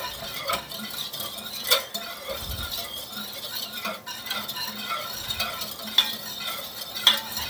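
Wire whisk stirring a thin milky mixture of coconut milk and half-and-half in a metal saucepan, with steady scraping and irregular light clinks of the whisk against the pot.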